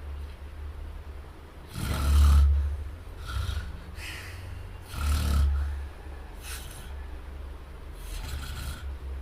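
Snoring: two loud snores about three seconds apart, with quieter breathy sounds between and after them, over a steady low hum.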